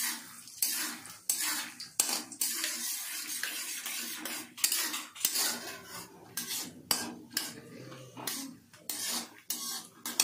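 A metal spatula scraping and knocking against a metal kadai in irregular strokes, roughly one or two a second, as peanuts and whole coriander seeds are stirred and roasted in a little oil.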